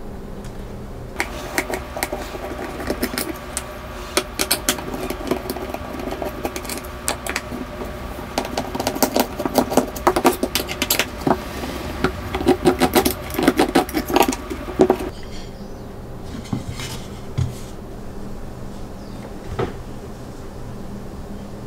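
Quick small clicks and ticks of a hand screwdriver turning screws into a plywood jig plate, over a steady hum. Both stop about fifteen seconds in, and a few single knocks of the jig being handled follow.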